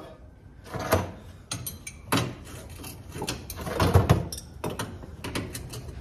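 Irregular clanks and knocks of a hand wrench and metal parts as bolts and a bracket are worked loose, the loudest cluster about four seconds in.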